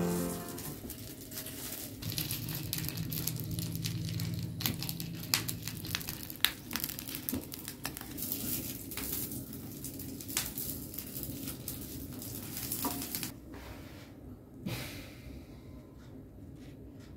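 A sausage frying in a nonstick pan on a lit portable gas stove: a crackling sizzle dotted with the clicks of tongs turning it. The sizzle dies down about thirteen seconds in, followed by a light knock or two as the sausage is lifted out.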